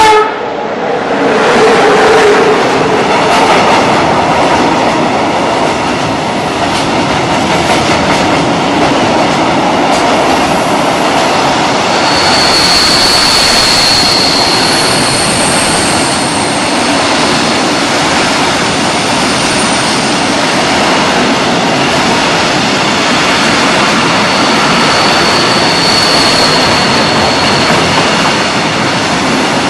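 Long freight train of open box wagons hauled by an electric locomotive, running past close by: a loud, steady noise of rolling wheels and rattling wagons. High-pitched wheel squeals come in around the middle and again near the end.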